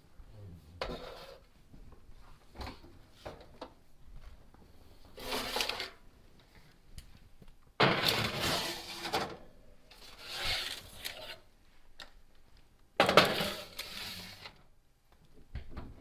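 Metal baking sheets being slid onto the wire racks of an open oven: four scraping, clattering stretches of a second or so, the loudest starting sharply about eight seconds in and another about thirteen seconds in, with small knocks between.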